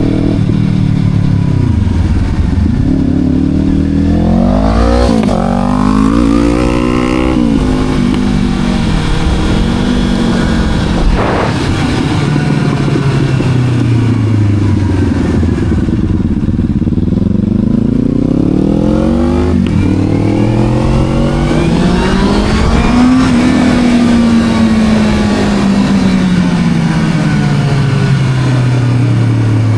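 Sport motorcycle engine pulling hard through the gears: the pitch climbs, drops at each upshift and climbs again, twice over. Near the end the engine eases off and the pitch falls slowly.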